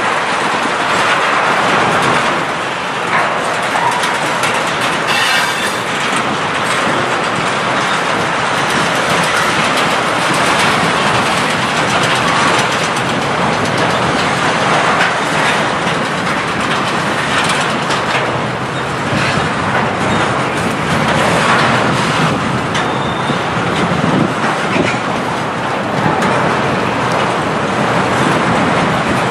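Freight train wagons, eight-axle tank cars, rolling past with a steady rush of wheel and rail noise and a clickety-clack of wheels over the rail joints.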